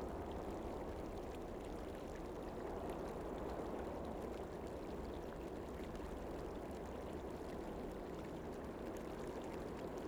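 Running water, a steady, even rush without a break.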